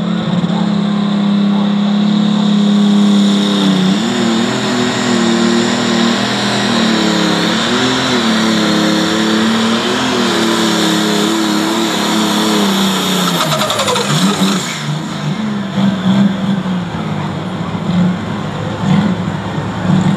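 Light limited super stock pulling tractor's engine running flat out under the load of the weight sled, with a steady high whine above it. Through the middle of the pull the engine pitch wavers up and down. About two-thirds of the way through it falls away as the pull ends, and the engine carries on lower and unevenly.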